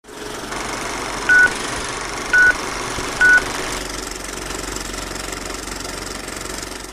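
Old-film intro sound effect: a steady whir and hiss like a running film projector, with three short high beeps about a second apart in the first few seconds.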